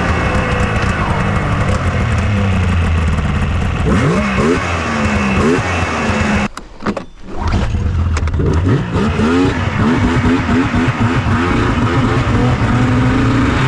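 Yamaha SX700R snowmobile's three-cylinder two-stroke engine revving up and down under throttle while riding, with a brief drop in level about six and a half seconds in and a hard rev climbing near the end. The choke is now off, and the engine is pulling cleanly.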